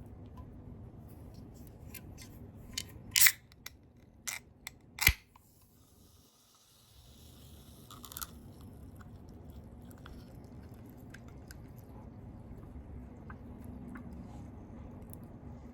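Handling noise: a handful of sharp clicks and taps about three to five seconds in, the loudest two near three and five seconds, then another click about eight seconds in, over a low steady hum.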